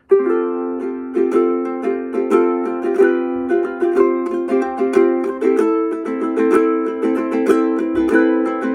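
Forest Ukuleles FUZZ concert ukulele strummed in a steady rhythm, moving through chords with a change about halfway.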